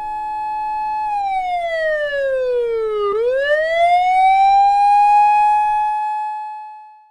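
Police car siren wailing: a held high note that slides down for about two seconds, swoops back up and holds again, growing louder, then fades out near the end.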